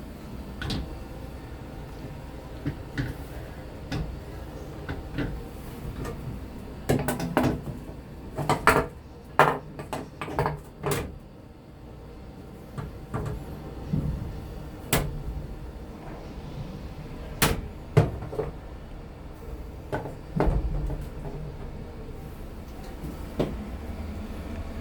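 A string of sharp knocks and clunks inside the toilet compartment of a JNR 185 series train car, thickest in a rapid cluster about a third of the way through, over a steady low hum.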